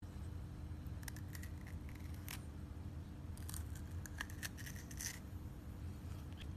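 A small child biting and chewing a piece of raw bitter melon: crisp crunching crackles in two bunches, from about a second in and again from about three and a half to five seconds, over a steady low hum.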